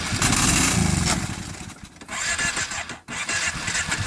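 Arctic Cat 650 engine running unevenly: its sound falls away sharply twice and comes back each time.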